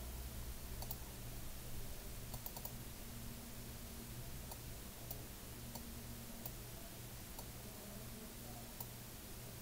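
Faint, scattered computer mouse clicks, a few over several seconds, over a steady low hum.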